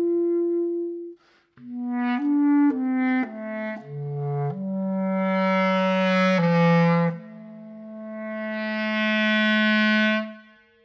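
A single line of held musical notes in a clarinet-like wind timbre, played one note at a time. A held note is followed by a short break and a run of about six quick notes, then longer notes; the last of these swells louder and brighter before it stops near the end.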